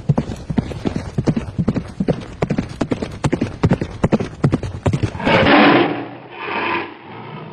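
Horse hoofbeats, a fast run of sharp knocks, several a second, for about five seconds, then a horse neighing loudly in two parts.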